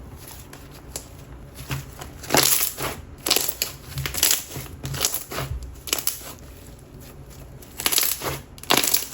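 Coated clear slime being squished and pressed by hand, letting off crisp bubble pops and crackles. The pops come in irregular clusters starting about two seconds in.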